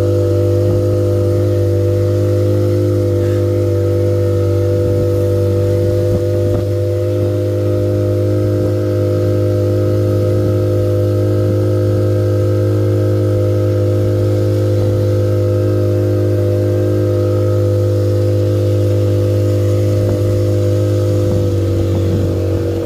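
Boat engine running at a steady speed, a loud constant hum with a few fixed tones that hardly change throughout.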